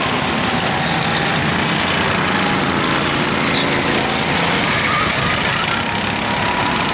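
Several rental go-karts' small engines running as the karts lap the track, a steady mixed drone with faint engine notes rising and falling.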